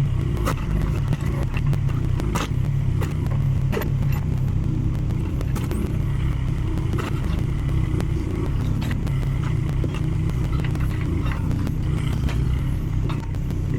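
Mini excavator's diesel engine running steadily, with scattered sharp knocks, cracks and scrapes of the hydraulic axe attachment working firewood.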